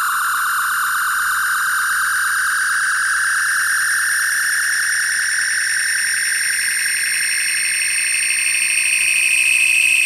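The Wand Company Star Trek hand phaser toy playing its phaser overload sound effect: a steady electronic whine that climbs slowly in pitch and grows louder over the last couple of seconds.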